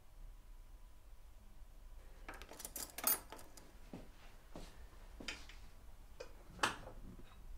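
A series of light clinks and knocks from small hard objects, starting about two seconds in, with two sharper, louder clinks about three seconds and six and a half seconds in.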